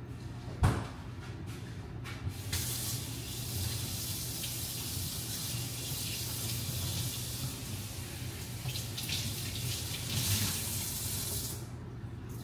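A faucet running into a sink, a steady rush of water that starts about two and a half seconds in and is shut off shortly before the end. A single thump comes a little under a second in.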